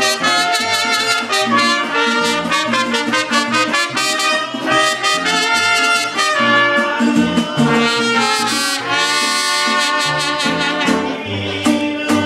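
Live mariachi band playing, with two trumpets playing the melody together over a moving bass line.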